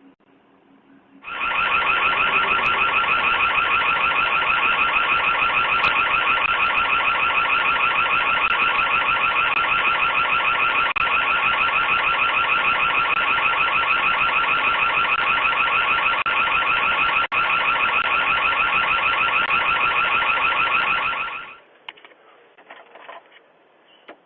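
Electronic alarm siren sounding as a loud, rapidly pulsing high tone. It starts abruptly about a second in, holds steady for about twenty seconds, and cuts off suddenly near the end.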